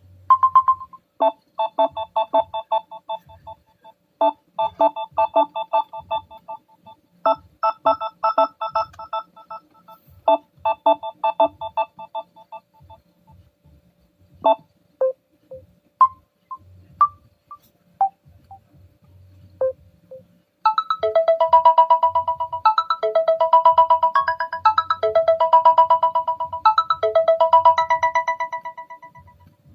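Samsung Galaxy Tab A8 stock ringtones playing in turn, short electronic melodies. First comes a rapidly pulsing, repeating melody, then a sparse run of single notes, then another fast pulsing melody from about two-thirds of the way in.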